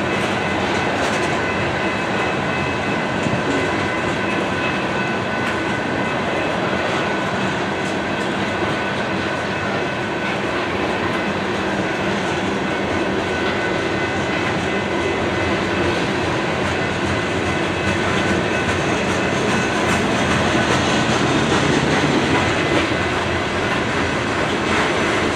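Coal train's gondola cars rolling past, a steady rumble of steel wheels on the rails with thin, steady high-pitched ringing over it.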